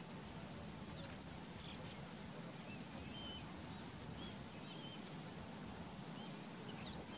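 Faint wild birds calling: scattered short, high chirps and whistled notes, several a second at times, over a steady low background hum of outdoor ambience.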